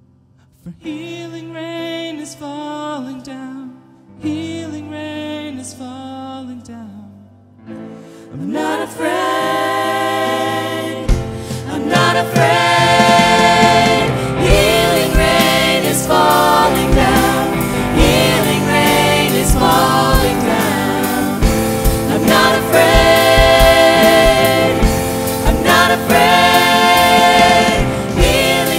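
Worship song with singing: a voice over held keyboard notes at first, then the full band with drums comes in about eleven seconds in and the music grows louder.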